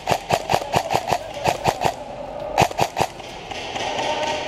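Airsoft guns firing a rapid string of sharp shots, about six a second, for roughly two seconds. After a short pause, three more shots follow close together.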